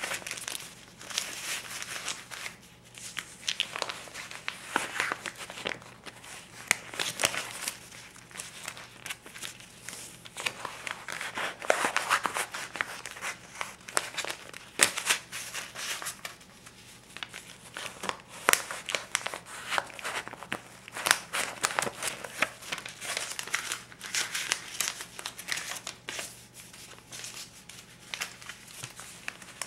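A stack of US $20 and $50 paper bills being handled, the paper crinkling and rubbing in irregular strokes, with many brief, sharp flicks as bills are moved.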